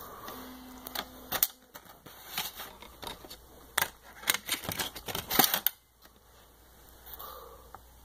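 Knife stabbing into a pie on a table: a quick, irregular run of sharp knocks, clicks and crunches for about five seconds, then it stops.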